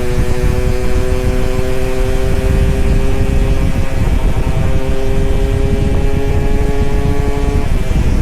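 Two-stroke motorcycle engine pulling under acceleration, its pitch climbing slowly, with a brief break about four seconds in, then climbing again until it drops away near the end. Heavy wind rumble on the microphone throughout.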